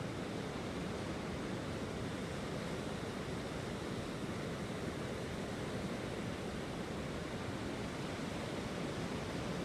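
Gulf of Mexico surf breaking along a sandy beach: a steady, even wash of noise with no single wave standing out.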